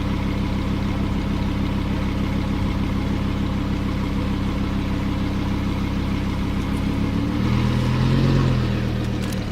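Lamborghini Huracán LP610-4's V10 engine running steadily at low revs, with a short swell in loudness and pitch about eight seconds in.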